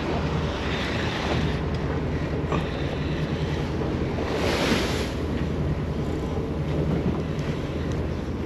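Wind buffeting the microphone and sea noise around a boat, over the steady low drone of the party boat's engine. There is a brief louder rush of wind or water about halfway through.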